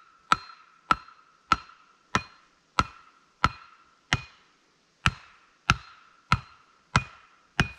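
Axe striking a wooden post in a steady rhythm, about three blows every two seconds with a short pause a little past halfway; each blow leaves a brief ringing of the axe head.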